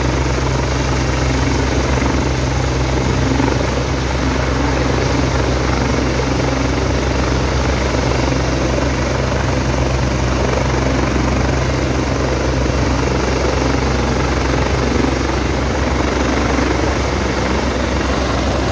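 Airbus H175 helicopter idling on the helipad with its engines running and its rotors turning. A steady, unchanging drone with a low hum under it.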